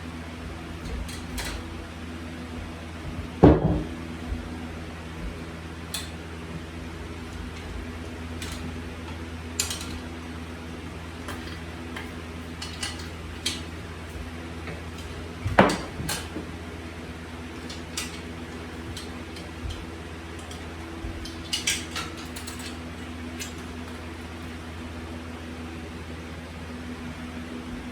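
Metal tools and motorcycle parts clinking and clanking as the bike is taken apart, with two louder knocks, about three seconds in and again around sixteen seconds, over a steady low hum.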